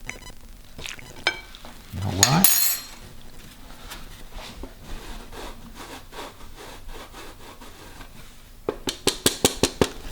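Cheese being grated over a plate of pasta, in a fast run of scraping strokes about seven a second near the end, after quieter kitchen handling and a brief louder sound about two seconds in.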